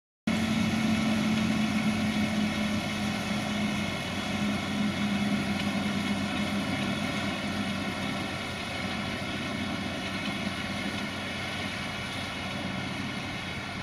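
Farm tractor diesel engine and baler machinery running steadily, a droning hum with a strong low tone that eases off about halfway through. The sound cuts in abruptly just after the start.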